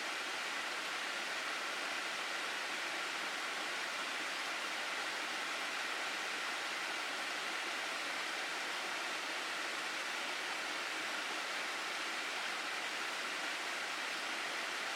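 Water rushing steadily down a mountain gorge stream, an even, unbroken hiss and roar.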